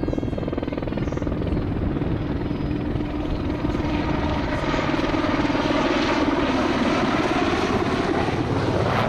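Westland Sea King helicopter in flight: steady rotor chop with an engine whine that sinks slightly and then rises near the end.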